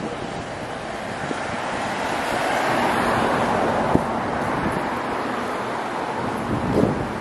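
Road noise of a passing vehicle, swelling to a peak about three seconds in and then fading, with a sharp click about four seconds in.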